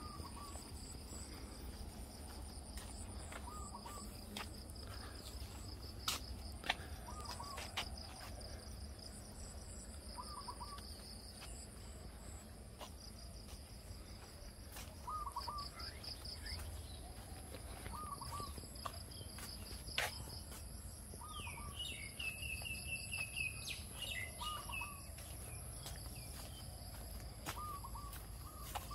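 Rural outdoor ambience: a bird repeats a short call every two to three seconds over a steady, high-pitched insect drone, and another bird chirps briefly about twenty-two seconds in. Scattered soft clicks sit underneath.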